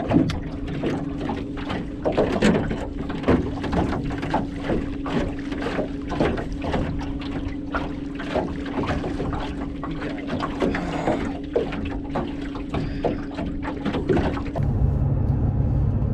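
Small waves slapping irregularly against an aluminum boat hull, over the steady hum of a 55-lb-thrust electric trolling motor. About a second and a half before the end it changes to the low steady drone of a vehicle cabin on the road.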